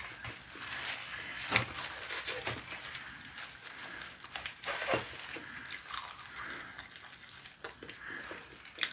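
Eating sounds from boiled chicken being pulled apart and chewed by hand in disposable plastic gloves, with the gloves crinkling. There are sharp clicks about a second and a half in and again about five seconds in.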